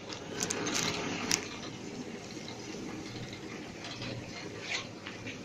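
Vertical continuous band sealer running, a steady low mechanical whir from its belt drive. A filled plastic bag is fed through it, with short rustles and clicks in the first second and a half and one more near the end.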